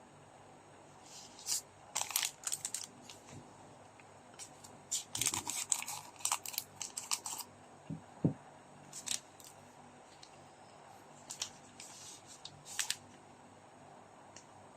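Trading card packs and wrappers being handled and opened by hand: crinkling and tearing of the packaging with small clicks. The sounds come in several short bursts, the busiest in the middle.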